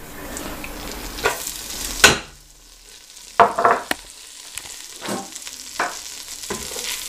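Butter sizzling in a saucepan, then a sharp knock about two seconds in and a run of short clatters and scrapes as diced onions go into the pot and are stirred over a lighter sizzle.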